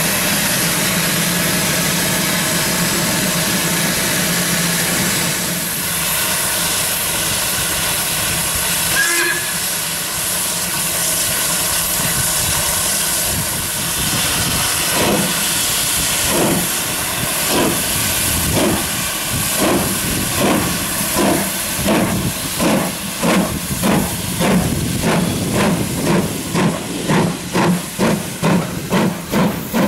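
LMS Ivatt Class 2 steam locomotive hissing steam, then getting under way: exhaust beats start about halfway through and quicken to about two a second, with steam hissing from around the cylinders.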